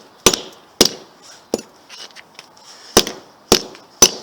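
Sledgehammer blows on a fluorescent light ballast, hitting it off its iron core to get at the copper: sharp metallic strikes with a brief ring, two about half a second apart, a lighter one, a pause, then three more at the same pace.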